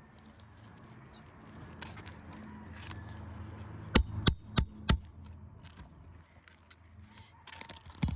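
Four quick metal hammer strikes, about three a second, on a nail puller working a roofing nail out from under an asphalt shingle, with scraping and light clicks of shingle and tools around them.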